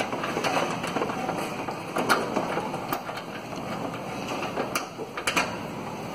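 10 mm open-end wrench unscrewing a headlight mounting bolt, with scattered light metal clicks as the wrench is turned and refitted on the bolt head.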